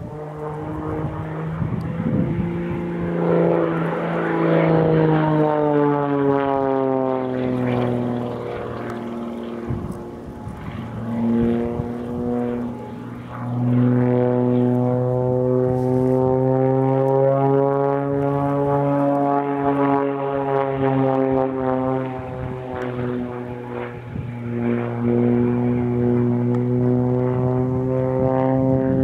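Extra 330SC aerobatic monoplane's six-cylinder Lycoming engine and propeller droning through an aerobatic sequence, the pitch rising and falling as it climbs, dives and turns. It fades a little about ten seconds in and swells again a few seconds later.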